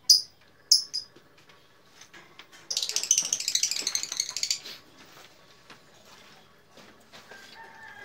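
Caged lovebirds calling: a few short, high chirps in the first second, then a loud burst of rapid, high-pitched chattering lasting about two seconds.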